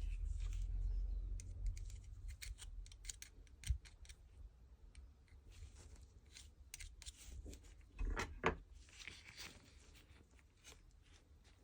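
Faint handling noise of small parts and tools on a workbench: scattered light clicks and scrapes, with a louder cluster about four seconds in and again near eight seconds.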